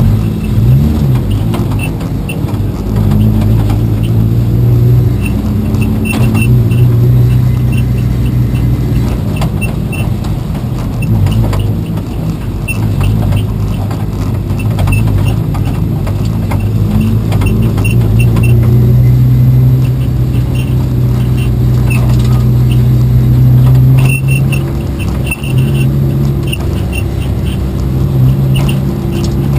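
Race car engine running hard and continuously, its pitch dipping and climbing again several times as the throttle and gears change, with light ticking rattles over it.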